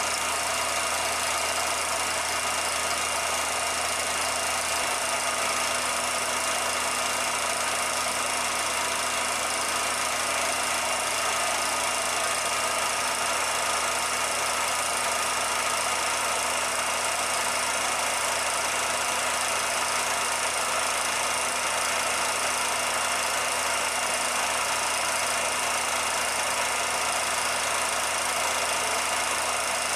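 Steady mechanical running noise with a constant hum and a light rattle. It never rises or falls and does not change when the shots change.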